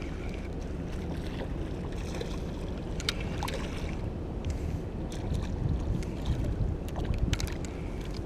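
Steady wind rumble on the microphone over lapping water, with a few short sharp clicks and ticks, while a spinning reel winds in a hooked sea bass.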